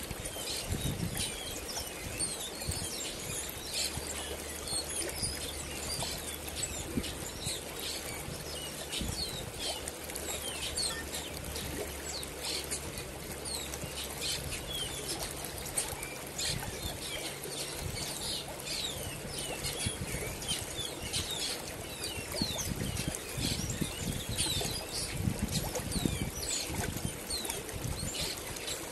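Shallow river water running over a rocky bed, with many small birds chirping throughout.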